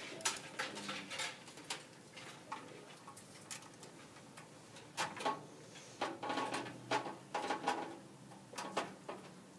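Screwdriver driving the screws that hold a motherboard down onto the standoffs of a computer case: scattered light clicks and taps, most of them from about five to eight seconds in.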